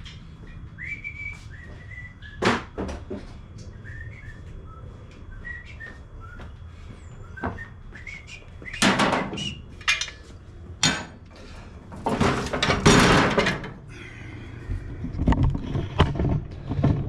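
Hand tools working the spindle bolts on a riding mower's cutting deck: scattered metal clanks and knocks, and a longer rasping, clattering stretch about twelve seconds in.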